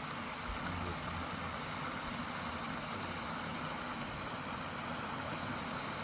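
A creek running under and along the stones, a steady, even rush of flowing water.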